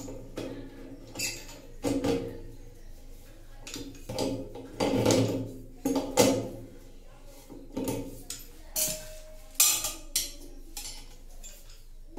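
Irregular clinks and knocks of hard objects being handled, over background music.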